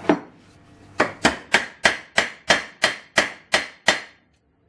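Hammer striking a door-lock linkage pin held in a steel bench vise, peening over a new hardened pin: a single blow, then a steady run of about ten blows at roughly three a second, each ringing briefly.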